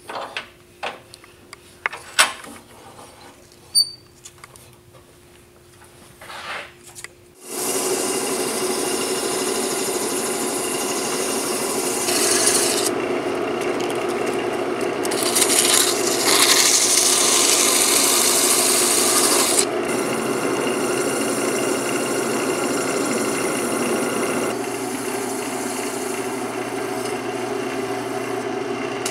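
Wood lathe running with a steady hum and a few handling clicks; about seven and a half seconds in a loud, steady rubbing hiss begins as an abrasive is held against the spinning wooden duck call barrel, with steel wool near the end, smoothing and finishing the turned wood.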